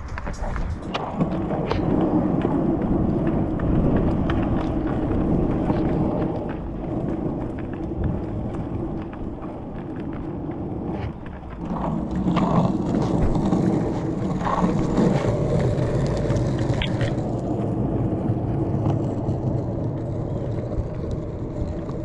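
Roller skate wheels rolling on rough pavement: a steady gritty rumble with scattered clicks and knocks, easing off in the middle and picking up again about halfway through.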